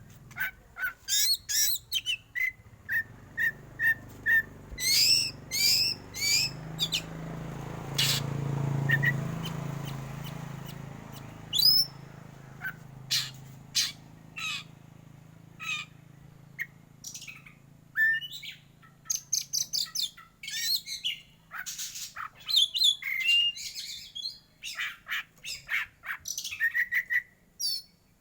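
Black oriental magpie-robin (kacer hitam) singing in its harsh 'batuk' (cough) style: quick strings of short, sharp notes and rough calls that slide steeply in pitch. The notes thin out for a few seconds in the middle, then come thick and fast again.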